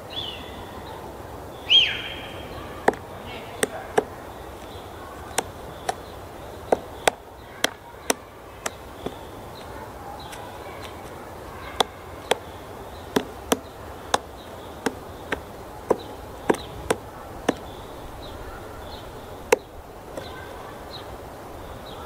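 Female black woodpecker chiselling at pine roots with its bill while foraging for bark beetles: single sharp knocks at irregular intervals, not a drumming roll. About two seconds in, a loud short call slides down in pitch.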